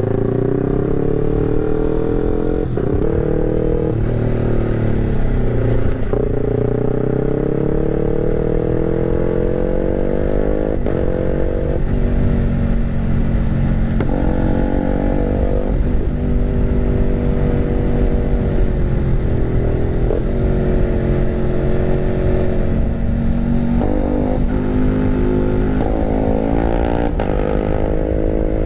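Bored-up motorcycle engine, its BRT Juken 5 ECU mapped for a 'timing kuda' lumpy rumble, ridden at low speed. The revs climb and fall back several times, with steadier stretches between.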